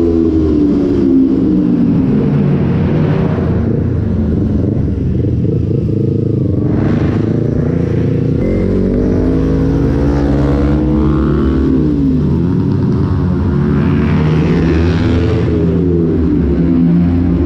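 Sport motorcycle engine heard from the rider's seat while riding, its pitch rising and falling several times as it is revved and eased off.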